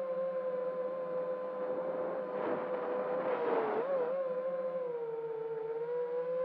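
FPV quadcopter's electric motors and propellers whining steadily, heard from the drone's onboard camera. A rush of air noise swells about halfway through, and the whine's pitch wobbles, sags for a second or two, then climbs back.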